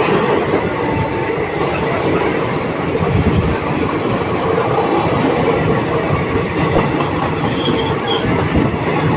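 Passenger train passing close at speed: a loud, steady rumble of wheels on the rails, with many short knocks and a few faint high wheel squeals.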